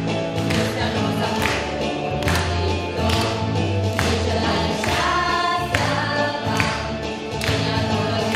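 Four women singing a song together, over a steady beat.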